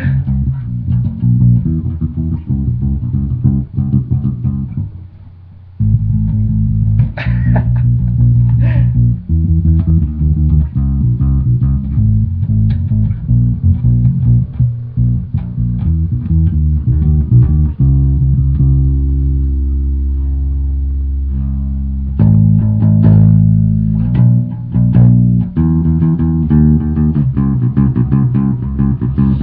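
Music carried by a plucked bass guitar playing quick low notes, with a brief drop-out about five seconds in and a long held low note about two-thirds of the way through.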